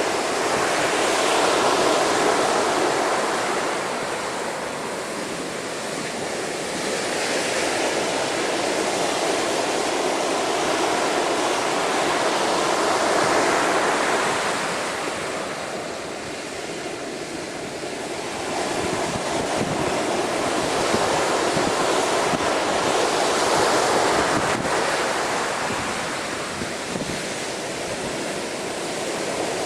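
Storm-driven waves at high tide surging against a sea wall, the wash swelling and easing in long surges every several seconds, with wind buffeting the microphone.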